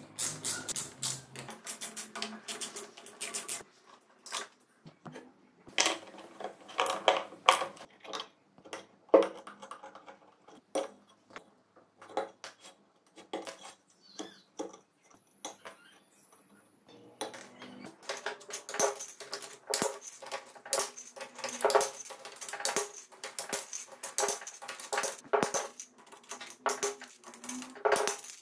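Irregular metallic clicks, clinks and knocks of hand tools and engine parts as a motorcycle four-cylinder engine's valve cover and camshaft-cap bolts are taken off, with a socket wrench working on the bolts. The clicking is dense at first and again in the last third, with a quieter spell around the middle.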